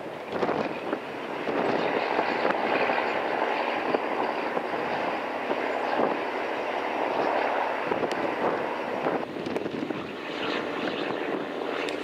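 Steady drone of boat engines working as a dock boat pushes a ship alongside the quay, mixed with strong wind buffeting the microphone; it eases a little about nine seconds in.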